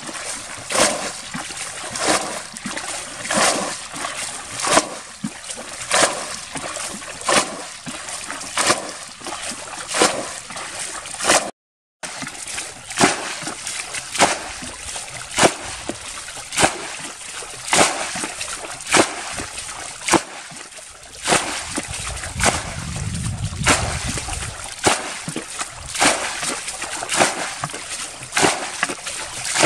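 Muddy water bailed out of a ditch with a bucket: a splash roughly every second and a half as each scoop is thrown out, with sloshing and trickling between.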